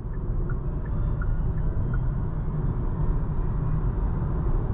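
Kia e-Soul electric car driving: a steady low rumble of road and tyre noise.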